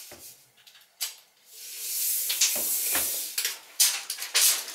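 A steel tape measure's blade being drawn out along a window sill: a sharp click, then a hiss of the sliding blade for about two seconds, followed by a run of light clicks and taps near the end.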